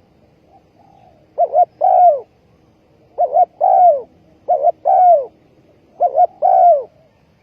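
Spotted dove cooing: four repeated calls, each two quick short notes followed by a longer coo that falls in pitch.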